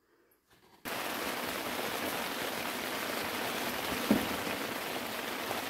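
Steady rain falling, an even hiss that cuts in suddenly under a second in after a moment of silence, with one short low knock about four seconds in.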